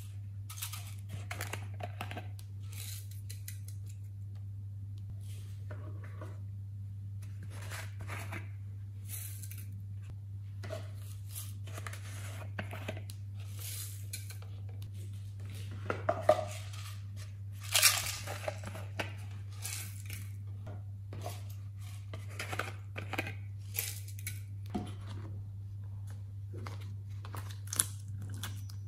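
Glitter and sprinkles shaken from plastic shaker bottles onto slime in a glass dish: a run of small scratchy rattles and clicks, with a couple of sharper knocks of plastic about halfway through. A steady low hum runs underneath.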